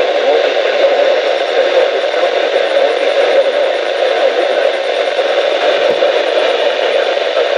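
Steady hiss of radio static from a weather-band receiver, with no voice or alert tones coming through.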